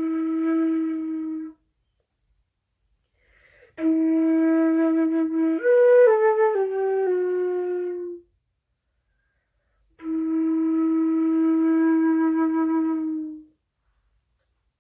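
A single melody instrument plays the slow closing notes of a hymn. One held note stops about a second and a half in, then a short phrase steps up and back down, and a final long held note ends a second or so before the close.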